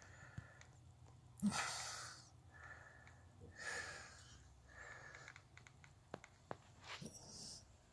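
Faint breaths and sniffs close to the microphone, several airy swells, the loudest about a second and a half in. Two soft clicks follow a little after six seconds.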